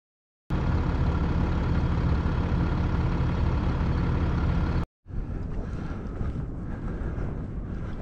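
A steady mechanical drone with a fixed pitch, like a motor running, starts about half a second in and cuts off abruptly just before the five-second mark. A quieter, uneven outdoor field recording follows.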